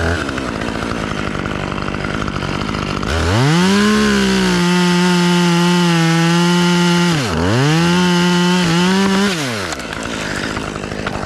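Husqvarna chainsaw, idling at first, opened up to full throttle about three seconds in and held there through a cut into a big-tooth aspen limb. Its pitch dips sharply once past the middle, then it drops back to idle near the end.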